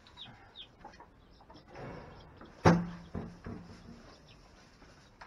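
Baby chicks peeping in short falling chirps, then a rustle and a sharp, loud knock about two and a half seconds in, followed by a second, smaller knock.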